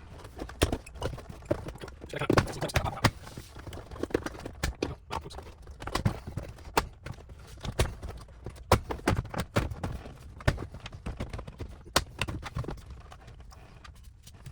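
Irregular clicks, taps and knocks of hands and tools working on the van's plastic dashboard trim, several sharp ones standing out.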